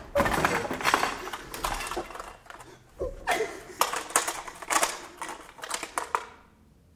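Quick clicking and plastic rattling from a broken red toy cassette recorder being handled and fiddled with; it stops about six seconds in.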